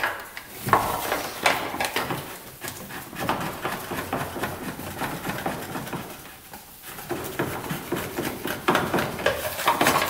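Irregular clicks, knocks and rubbing of gloved hands working the oil dipstick in and out of a UTV's engine bay.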